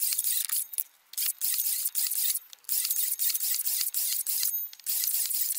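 Makita XSH06 36-volt cordless 7-1/4" circular saw cutting one piece after another off timber boards in sped-up footage, a thin high hiss with no low end. It breaks off briefly between cuts, three times.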